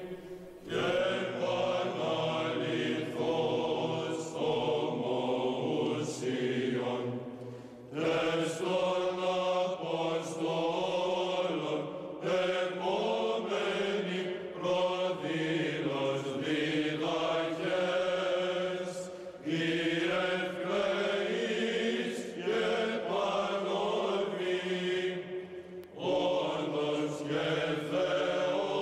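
Byzantine chant: a sung hymn in long held melodic phrases, with brief pauses between the phrases.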